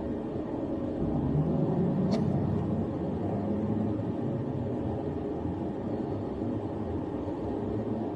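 Police patrol car driving, its engine and road rumble heard from inside the cabin, with a single sharp click about two seconds in.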